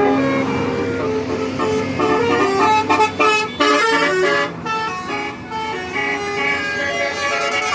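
Bus 'telolet' horns: several multi-tone air horns sounding at once, playing quick tunes in stepped notes that overlap.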